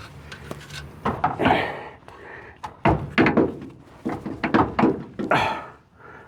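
Hand scraping of built-up grease and dirt from the steering box mounting area of a truck frame: a run of uneven scraping strokes with a sharp knock about three seconds in.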